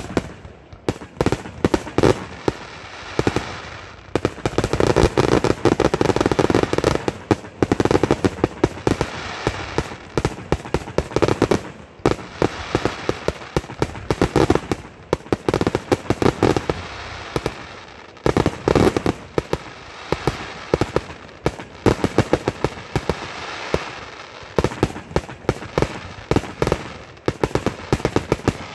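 Aerial fireworks bursting in quick succession: a continuous barrage of sharp bangs and crackles, swelling into louder clusters every few seconds.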